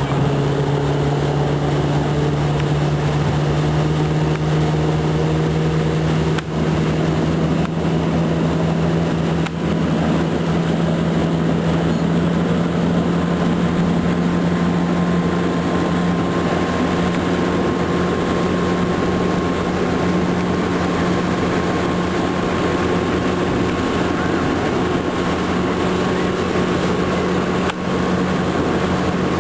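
Motorboat engine running under load while towing, its pitch climbing at the start as the boat speeds up and then holding nearly steady, over the rush of the wake and wind.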